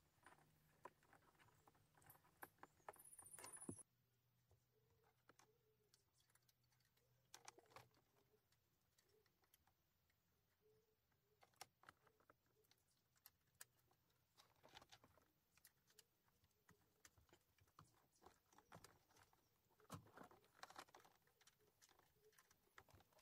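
Near silence, with faint scattered clicks and rustles of wiring harnesses and plastic plug connectors being handled behind a car stereo head unit.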